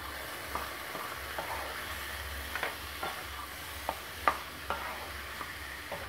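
Wooden spatula stirring and scraping diced boiled potatoes around a metal kadhai over a low, steady sizzle of frying oil, with irregular knocks of the spatula against the pan.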